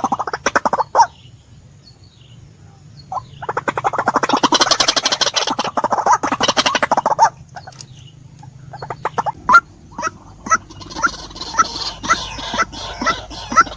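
White-breasted waterhen (ruak-ruak) calling: a long burst of rapid, harsh, stuttering notes in the middle, then near the end a steady series of repeated 'kwak' notes about twice a second.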